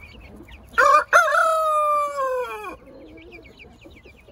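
A rooster crows once, starting about a second in: one long call with a brief catch near the start that falls away at the end. Young chicks peep in short, high chirps after it.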